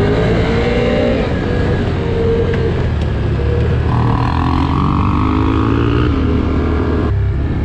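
ATV engine running under throttle on a dirt trail, its pitch rising and falling as the rider speeds up and eases off. The sound changes abruptly about seven seconds in.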